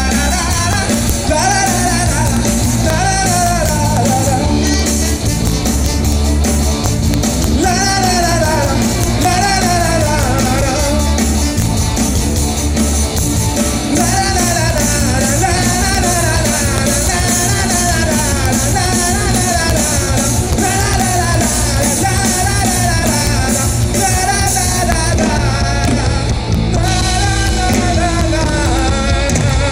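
Live amplified band music with a steady drum beat and bass, keyboard and saxophone, and a male singer carrying the melody.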